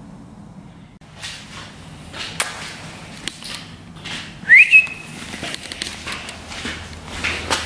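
A short high whistle about halfway through, quickly rising in pitch and then held for a moment, among light scattered clicks and rustles.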